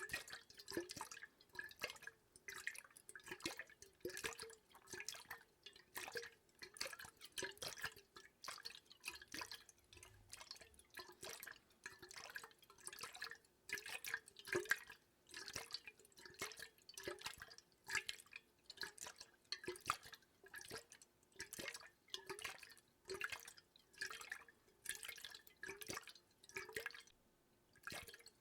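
Water drops falling one at a time into water, a steady run of plinks about twice a second.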